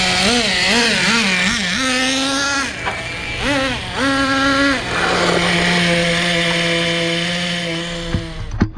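Traxxas Nitro Stampede's Pro 15 nitro engine with an MIP Stinger exhaust, revving as the RC truck is driven: quick repeated throttle blips over the first couple of seconds, then two longer revs, then a steady high-rpm run that stops abruptly near the end.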